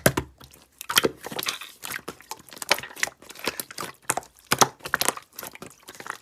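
Slime being squeezed and pressed by hand, making a rapid, irregular run of wet clicks and crackling pops.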